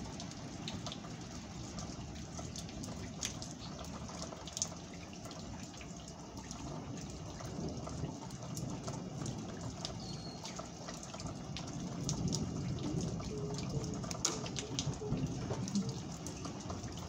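Steady rain falling, with many scattered sharp drip ticks.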